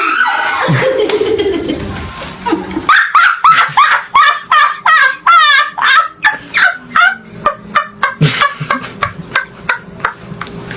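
People laughing hard. From about three seconds in comes a long run of rapid, high-pitched laughs, several a second.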